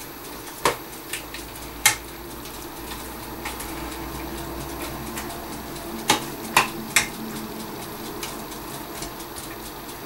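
A wooden spatula stirring thick, well-reduced bacon jam simmering in a frying pan, over a steady low bubbling. Sharp knocks of the spatula against the pan come in two groups of three, about a second in and again about six seconds in.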